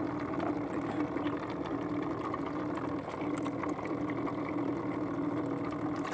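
A steady mechanical whirring hum held at one pitch throughout, with a few faint clicks.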